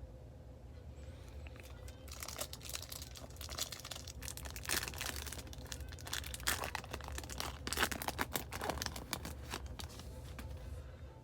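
Foil trading-card pack wrapper being torn open and crinkled, a run of crackling and crinkling from about two seconds in until near the end.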